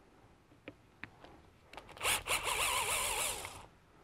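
Cordless drill-driver running for about a second and a half, its pitch rising and falling, as it backs out a top screw of the B2 edger's carbon-brush holder.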